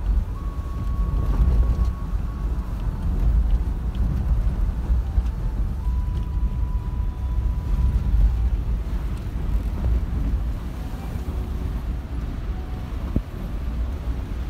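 Low rumble of a vehicle driving up a rough mountain road, heard from inside the cabin, with wind buffeting the microphone. A faint, thin, steady tone comes in twice for a second or two.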